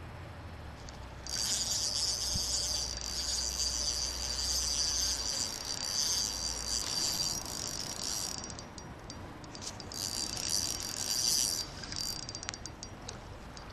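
Fishing reel whirring as line is cranked in, in two stretches with a short pause about eight seconds in.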